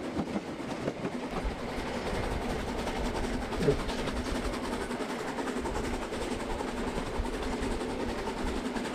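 H0-scale model trains running on the layout: a steady hum with light, frequent clicking of wheels on the track.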